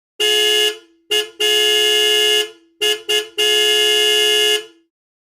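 Car horn honking in a pattern of two short beeps and one long honk, played twice in a row.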